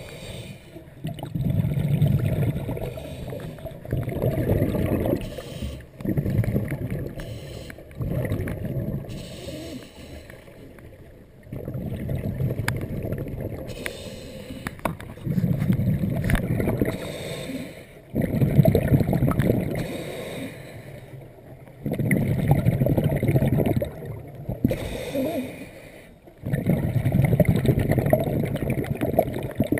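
Scuba diver's exhaled breath bubbling out of the regulator underwater, in bursts of about two seconds that come every three to four seconds, with quieter inhalations between.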